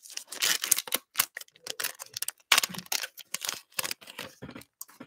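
Foil wrapper of a trading-card pack crinkling and tearing as it is ripped open and the cards are pulled out, in irregular crackly bursts.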